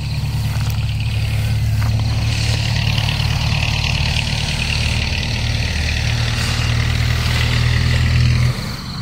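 A small engine running steadily at one speed, then cut off suddenly about eight and a half seconds in.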